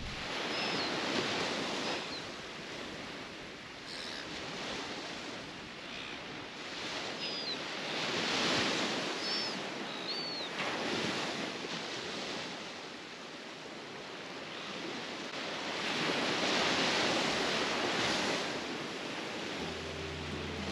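Ocean surf breaking and washing up on a beach, swelling loudest twice, with wind in the background. Short high chirps, likely from a bird, sound several times in the first half.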